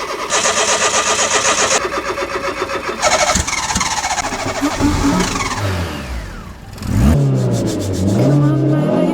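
Lancia Y's starter cranking the cold engine with an even rhythmic beat for about three seconds until it catches; the revs then sag and the engine nearly stalls, before it is revved up and down repeatedly with the pedal in the last two seconds.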